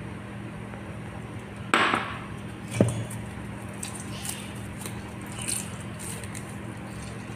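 Gloved hands rubbing oil and spices into a raw whole chicken in a stainless-steel bowl: soft wet squishes and smacks, with a brief rush of noise about two seconds in and a sharp knock just under three seconds in, over a steady low hum.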